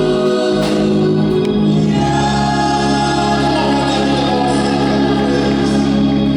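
Church choir singing gospel music, settling into a long held chord about two seconds in.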